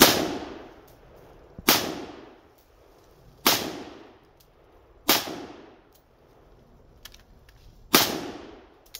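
Five semi-automatic rifle shots from an AR-15 carbine with a 16-inch 5.56 barrel firing steel-case .223, spaced about one and a half to three seconds apart, each followed by a trailing echo. The rifle keeps cycling the steel-case ammunition without a malfunction.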